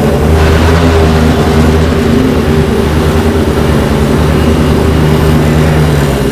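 Race car engine idling steadily, with an even, unchanging pitch.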